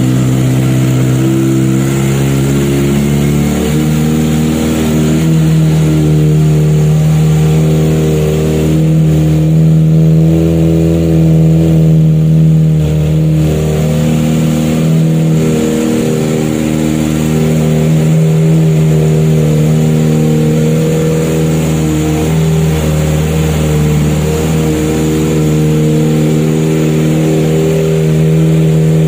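Kawasaki ZX25R's 249 cc inline-four engine idling steadily through an aftermarket Corse full-system exhaust.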